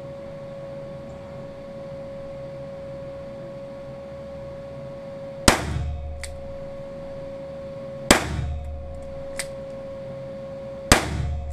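Three shots from a Weihrauch HW5 T revolver firing CCI Mini-Mag .22 LR rounds, each a sharp crack with a short ringing echo, about two and a half to three seconds apart. These are high-velocity rounds that the shooter finds hotter, audible in the report. A steady hum runs underneath.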